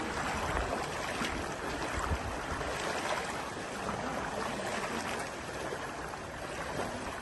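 Floodwater sloshing and splashing steadily as people wade knee-deep through it, pushing an inflatable rescue boat.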